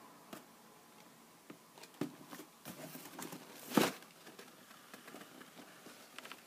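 Cardboard shoeboxes being handled: scattered light taps and scrapes of cardboard, with one louder brushing scrape a little under four seconds in.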